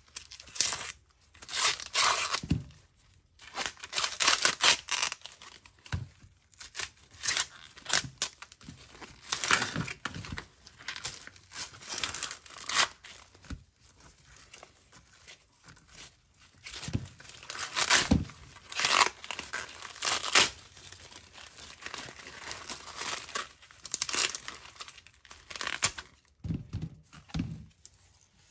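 Green husks being torn and peeled off an ear of fresh sweet corn by hand, in a long series of irregular rips.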